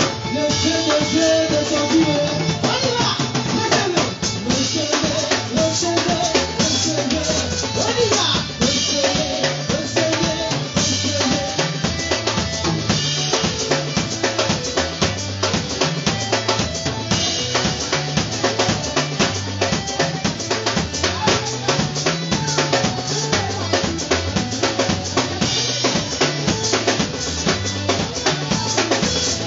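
Live band playing upbeat praise music: a drum kit keeps a steady, busy beat, with keyboard.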